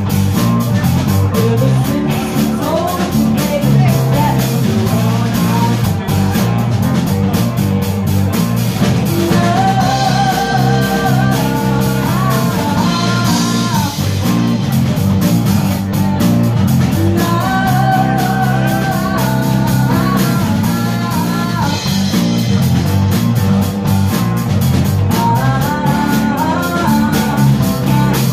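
Live blues-rock band playing: a woman singing over two electric guitars, electric bass and drum kit. The vocal comes in phrases about ten seconds in, again near the middle, and again near the end, with the band playing on between them.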